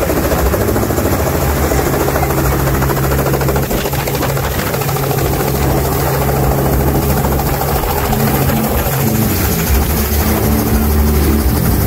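Small two-bladed helicopter landing on a helipad, then running on the ground with its rotor still turning. Its loud, steady drone holds without a break throughout.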